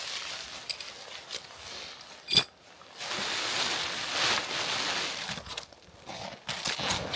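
Rock ptarmigans calling with short croaks. About two and a half seconds in there is one sharp, ringing click, and a couple of seconds of hissing noise follow in the middle.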